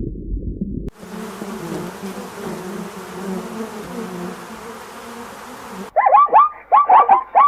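A low rumble cuts off about a second in, giving way to a steady insect buzz lasting about five seconds. Near the end comes a rapid run of loud, high chirping calls, several a second, from another animal.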